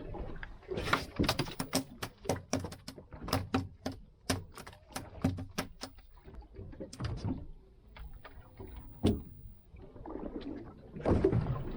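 A quick, irregular run of sharp knocks and thumps on the hull and fittings of a small boat, thinning out after about seven seconds, with one louder knock around nine seconds and a louder scrape near the end.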